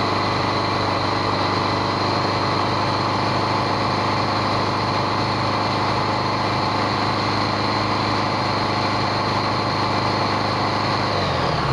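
Honda GL1100 Gold Wing flat-four engine held steadily at raised revs, around 3,000 RPM, with its four carburettors synchronised evenly and the intake clamps freshly tightened. The revs drop back near the end.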